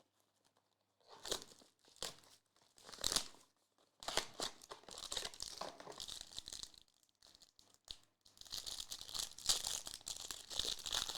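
Trading card pack wrappers being torn open and crinkled. A few short rips come in the first three seconds, then the packaging crinkles almost without a break.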